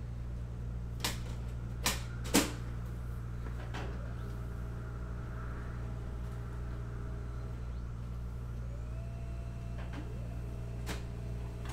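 Steady low room hum, with a few sharp clicks or knocks, three close together about one to two and a half seconds in, the last the loudest, and a fainter one near the end.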